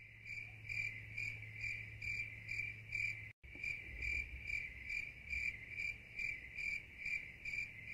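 A cricket chirping in an even, steady rhythm of about two and a half chirps a second, over a low hum, with a brief break about three seconds in.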